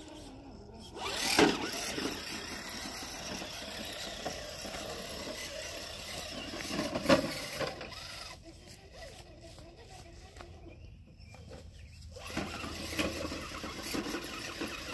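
Small electric RC rock-crawler truck's motor and gears whirring as it drives, with a couple of sharp knocks as its tyres and chassis hit pavement and rocks.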